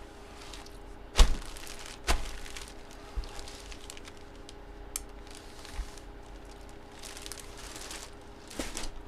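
Trading-card packaging being handled on a table: crinkling and rustling, with two sharp knocks about a second apart near the start and a few lighter taps later.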